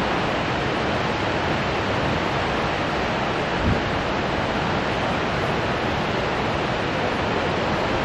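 Shōmyō Falls, a tall waterfall plunging into a gorge, giving a steady, even rush of falling water. A brief low thump sounds about three and a half seconds in.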